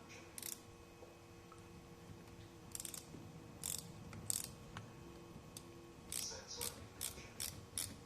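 Faint, sharp clicks and snips of small tools and parts being handled during drone assembly, a few scattered at first, then a quicker run of them about every half second near the end.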